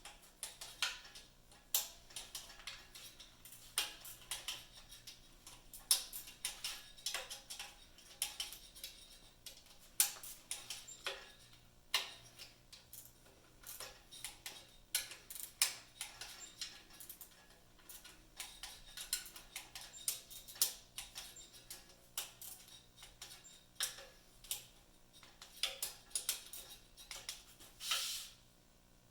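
Torque wrench ratcheting and clicking on the oil pan bolts of a Dodge 4.7 engine: an irregular string of sharp clicks and ticks as each bolt is re-checked for torque.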